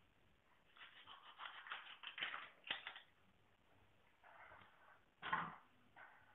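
Kitchen knife cutting through the neck of a whole tuna to take its head off: faint crackling clicks and rasps in short runs, with one sharper, louder knock about five seconds in.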